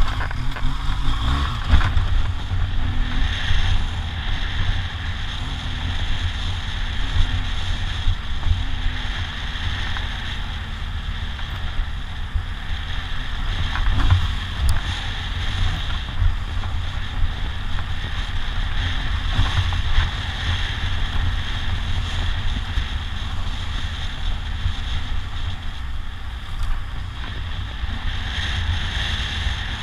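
BMW R1200GS Adventure boxer-twin engine running at a steady pace under strong, continuous wind buffeting on the microphone while riding a dirt track, with a deep rumble throughout.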